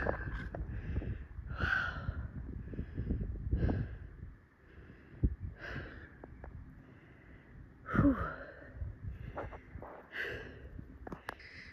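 A hiker breathing hard after a steep uphill climb: a loud, wheezy breath about every two seconds, the loudest one about eight seconds in, falling in pitch like a sigh.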